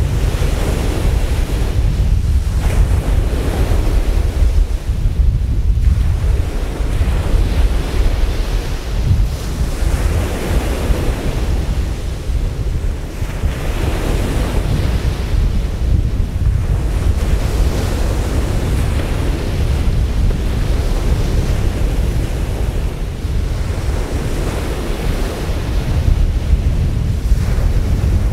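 Wind buffeting the microphone with a steady low rumble over the wash of surf and water spray, which swells and fades every couple of seconds.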